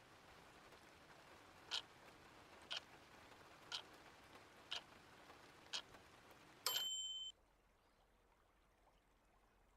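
Timer signal at the end of a 25-minute Pomodoro focus block: five short ticks a second apart over soft rain, then a brief high electronic beep. The rain ambience cuts off with the beep, leaving near silence.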